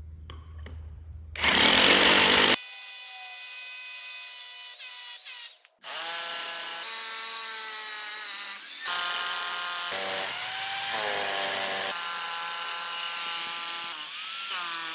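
Harbor Freight Bauer 10-amp hammer drill drilling holes in a concrete floor, heard as several short runs joined together. A loud rattling burst comes about a second and a half in; after that the motor whines steadily, its pitch sagging and recovering, and it stops and restarts several times.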